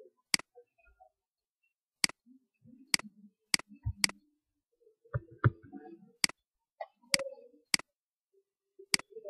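Computer mouse clicking about ten times at uneven intervals, sharp single clicks.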